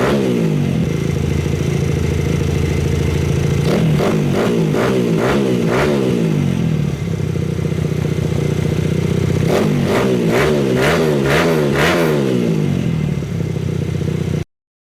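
Small motorcycle engine breathing through a Scorpion Serket Taper titanium racing exhaust can, idling with two runs of quick throttle blips, about four seconds in and again about ten seconds in. The sound cuts off suddenly near the end.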